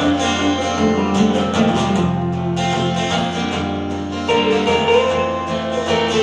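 Instrumental guitar break: an acoustic guitar strummed together with a second guitar playing a melody, with some notes that slide in pitch in the second half.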